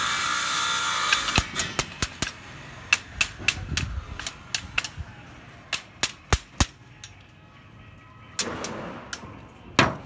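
Small hammer tapping the steel rebar and stirrups of a reinforcement cage: a quick run of sharp metallic knocks, about two or three a second, thinning out after about seven seconds, with one louder strike near the end.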